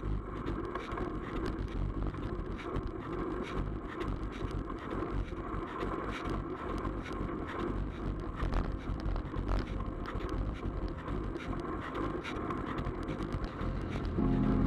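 Wind buffeting a bike-mounted camera's microphone over tyre and road rumble from a road bike being ridden at speed. Music comes in just before the end.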